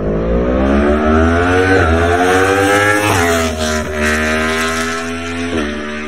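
Yamaha MT-10 superbike's crossplane inline-four accelerating hard past, its engine note climbing through each gear and dropping sharply at three quick upshifts.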